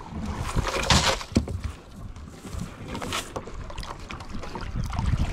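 Water splashing and sloshing beside a small boat's hull as a cast net is worked in the water, with two louder splashing surges, about a second in and about three seconds in, and wind buffeting the microphone.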